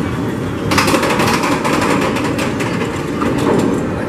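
Mine-train roller coaster train climbing the lift hill, with low rumbling and a rapid run of sharp clacking clicks from the lift track that starts under a second in.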